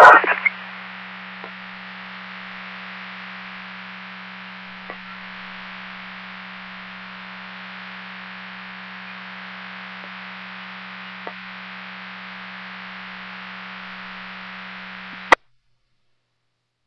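Open radio channel between transmissions: steady static hiss over a low hum, with a few faint clicks, ending in a sharp click and a sudden cut to silence near the end.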